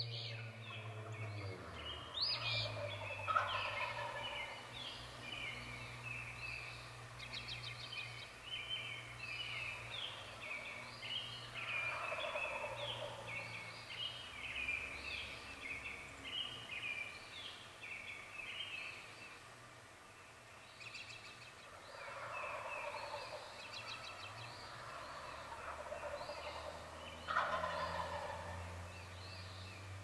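Wild turkey gobbling several times, each a rattling call that falls in pitch, over a dawn chorus of songbirds chirping without pause. A steady low hum runs underneath.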